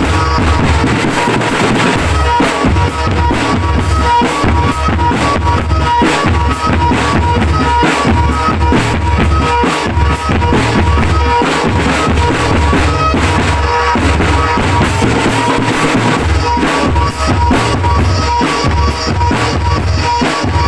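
Marching drum band playing loudly, with bass drums and snare drums beating a steady, driving rhythm and a repeated high note sounding over it.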